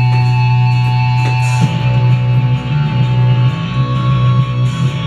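Music playing from a vinyl record on a turntable: a held, droning chord changes about a second and a half in to a heavier electric-guitar passage.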